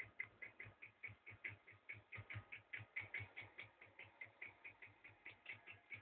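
Reed-switch magnet pulse motor running: a faint, fast ticking, about five clicks a second, each tick a small switch click with a low thud as the coil is pulsed.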